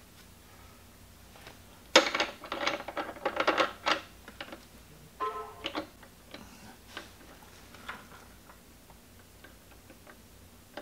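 Small steel machine parts clicking and clinking together by hand: a quick run of sharp metallic clicks with a ringing tone for about two seconds, then one ringing clink a little later and a few light taps.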